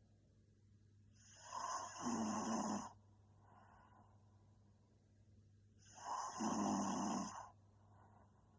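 A young woman snoring in her sleep: two loud snores, each lasting nearly two seconds and about four and a half seconds apart, with softer breathing between them.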